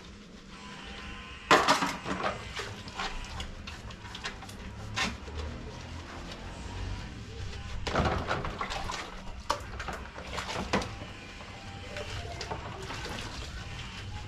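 Dishes and metal utensils being washed by hand: irregular clattering and knocking of pots and plates, loudest about a second and a half in and again around eight seconds, with some water sloshing.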